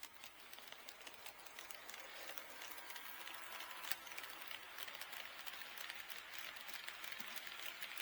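HO scale model train running on the layout track: a faint rolling hiss with many light clicks from the wheels, one sharper click about four seconds in.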